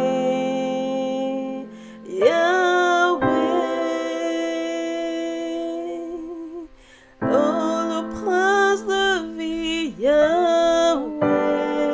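A woman singing a slow worship song in long, held notes over sustained chords, with a short lull a little past halfway before the singing rises again.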